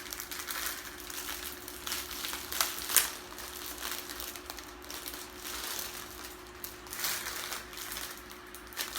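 Packaging crinkling and rustling in irregular strokes as hands work a hair bundle out of its wrapping, with one sharper crackle about three seconds in. A fan hums steadily underneath.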